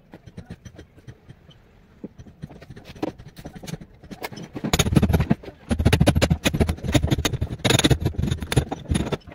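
Scraping and knocking from work on plastic water pipes, a few scattered clicks at first, then a loud, dense run of rapid scrapes and knocks from about five seconds in that stops just before the end.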